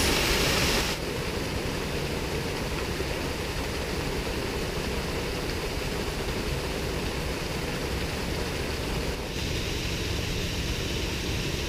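Small waterfall and stream rushing: a steady noise of falling water, louder for about the first second, then steady and a little softer.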